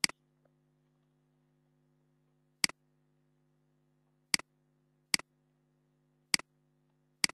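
Computer mouse clicks: six sharp clicks at irregular intervals, each a quick press-and-release pair, over a faint steady electrical hum.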